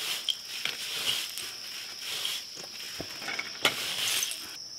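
A long-handled applicator being worked against a concrete block wall, brushing on waterproofing sealer with soft swishing strokes and a couple of sharp knocks, over a steady high drone of insects.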